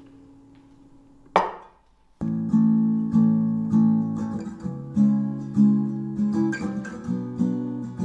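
Acoustic guitar background music. One piece fades out, a brief rushing noise sounds about a second and a half in, and a new plucked-guitar piece starts about two seconds in.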